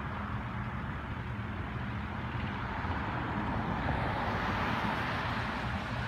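Road traffic: a steady low engine hum with the noise of a passing vehicle swelling about four to five seconds in.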